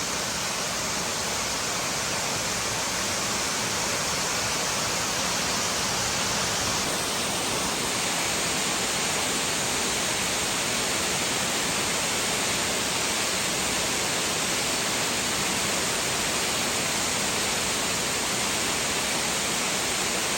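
Flat Creek Falls, a large waterfall, pouring steadily: an even, unbroken rush of falling water.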